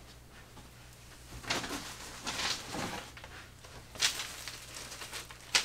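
A bundle of long wooden kit sticks being lifted and handled, with soft rustling and then two sharp knocks, about four seconds in and near the end.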